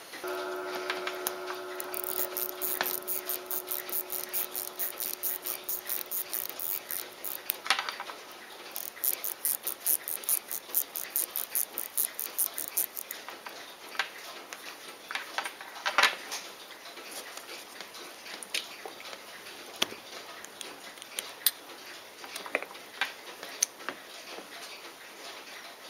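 Mechanical movement of a Poljot Signal alarm watch ticking quickly and evenly for the first dozen seconds, with small clicks of the movement and dial being handled later on. A steady pitched hum sounds over the ticking for about the first seven seconds.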